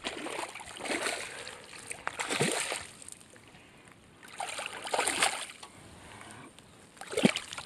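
Hooked largemouth bass thrashing and splashing in shallow water at the shoreline, in four separate bursts of splashing.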